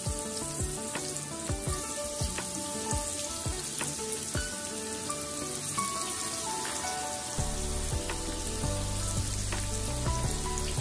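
Spice-coated bitter gourd slices deep-frying in hot oil: a steady sizzle with scattered crackles and pops. Background music plays underneath, with a low bass line coming in about two-thirds of the way through.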